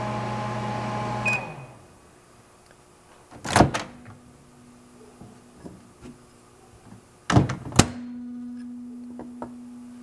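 A 1988 Sharp Carousel II microwave oven hums as it runs, now repaired. About a second and a half in there is a short beep and the hum stops. The door then opens with a clunk and later shuts with two clacks, after which a faint low hum remains.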